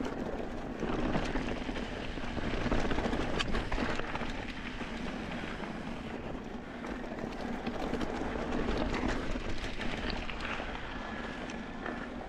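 Mountain bike rolling over rocky, gravelly desert singletrack: a steady crunch and rush of tyres on loose gravel, with scattered knocks and rattles as the bike hits stones.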